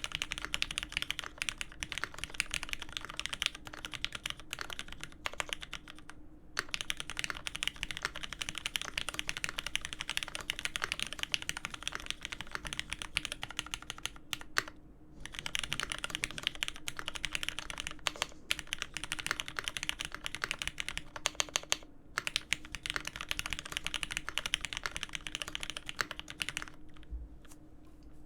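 Fast, continuous typing on a custom mechanical keyboard: a Dolphin Special Ver.2021 with an aluminium plate, lubed Hyperglide Cherry MX Black linear switches and GMK keycaps, clacking in dense runs. The typing stops briefly three times and slows near the end.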